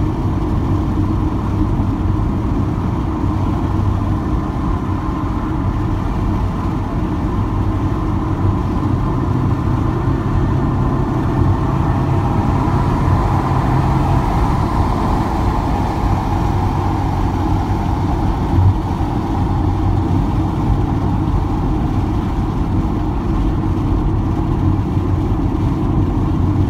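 Steady road noise inside a car cruising at highway speed: a low, even rumble of tyres and engine, with one brief thump about two-thirds of the way through.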